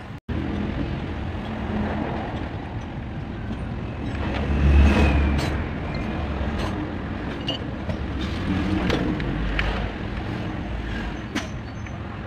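Steady rumble of road traffic, with a louder vehicle going by about five seconds in, and scattered light metallic clicks of parts and tools being handled at the engine's timing belt.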